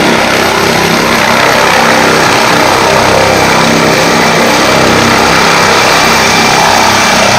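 Helicopter lifting off: loud, steady rotor and turbine noise with a thin high whine above it.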